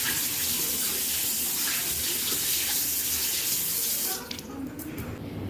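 Water running from a tap into a sink, shut off about four seconds in, followed by a few light clicks.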